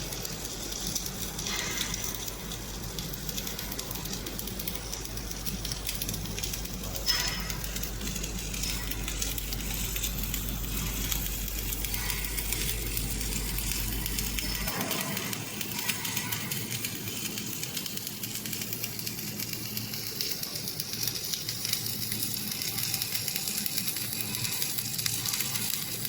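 Submerged arc welding of a steel plate butt joint: a steady crackling hiss from the arc burning under flux, with a low hum underneath that cuts off a little past halfway.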